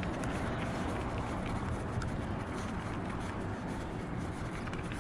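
A bicycle rolling along a rough paved road: steady tyre and riding noise with a few light clicks.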